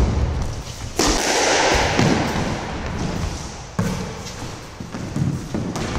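Squash rally: the ball cracking off racquets and the court walls, a few sharp hits one to three seconds apart, each ringing on in the enclosed court.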